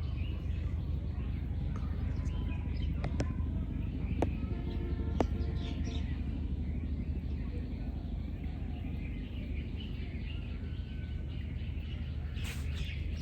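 Outdoor village ambience: small birds chirping over a steady low rumble, with a few sharp clicks in the first half.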